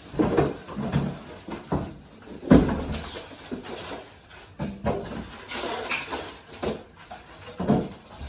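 Plastic carpet-cleaner parts and packaging being handled during unboxing: irregular knocks, scrapes and rustles, with the loudest knock about two and a half seconds in.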